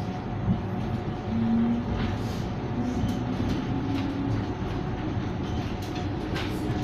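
Inside a BN T2000 tram in motion: steady rumble of wheels on the rails, with a traction-motor whine that climbs slowly in pitch from about a second in as the tram gathers speed.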